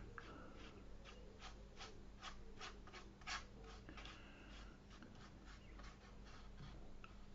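Watercolour brush stroking and dabbing across textured watercolour paper: a run of faint, soft scratchy strokes, about three or four a second, with one louder stroke about three seconds in, then sparser and fainter.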